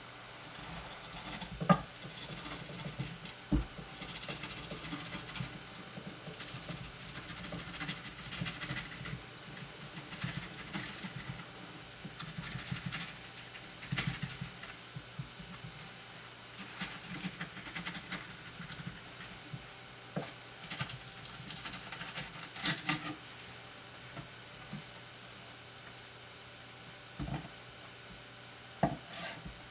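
Kitchen knife skinning a Japanese sea bass fillet on a cutting board: irregular scraping of the blade drawn between skin and flesh, with scattered small knocks and taps. The scraping dies down in the last several seconds, leaving only a couple of taps.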